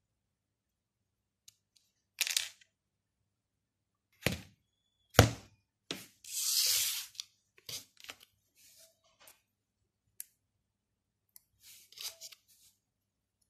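Handling sounds of a Huawei P30 Lite smartphone and its SIM tray on a cardboard surface: light clicks and knocks as the tray is ejected with a pin and pulled out. Two sharper knocks about four and five seconds in are the loudest, followed by a scraping rustle lasting about a second, then a few more small clicks.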